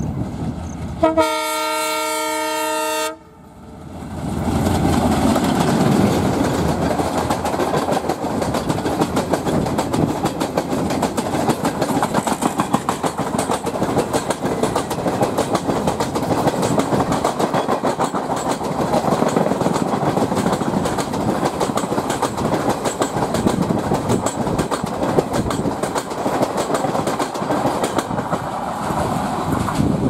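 WDM3A ALCO diesel locomotive's horn sounds once for about two seconds, then cuts off. The train then passes close by, its coach wheels clattering rhythmically over the rails without a break.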